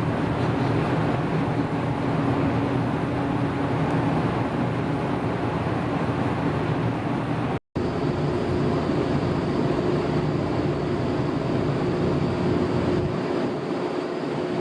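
Steady machinery hum and rushing noise of a large ferry underway, heard on its open deck. It breaks off for an instant just before the middle, and a steady higher-pitched hum joins in after.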